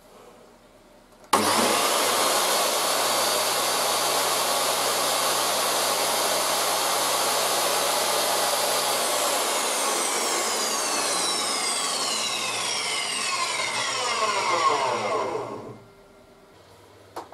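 DeWalt DW745 10-inch jobsite table saw starting up suddenly about a second in and running steadily at full speed with its blade lowered. About halfway through it is switched off and winds down, its pitch falling steadily for about six seconds until it stops.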